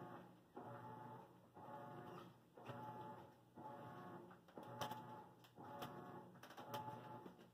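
Faint machine hum that swells and drops about once a second, with a few light clicks about five to seven seconds in.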